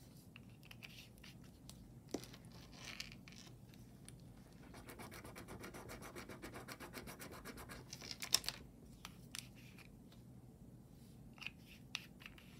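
Faint handling noise from a piece of metal jewelry being turned over and examined: rubbing and a stretch of quick, fine scratching in the middle, with a few small clicks, the sharpest about eight seconds in.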